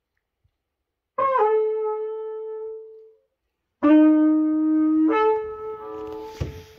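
Wooden shepherd's horn of the Beskid highlanders blown in long held notes: a higher note that fades out, then after a pause a lower note that jumps up to the higher one. Each note starts with a quick downward slide in pitch, and there is a single knock near the end.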